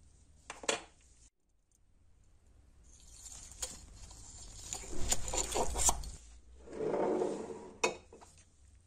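Small metallic clicks, clinks and scraping of a brass razor case and its wire hinge pin being handled on a wooden workbench. A sharp click comes about half a second in. A busier stretch of scraping and clinking builds up in the middle, and a last sharp click comes near the end.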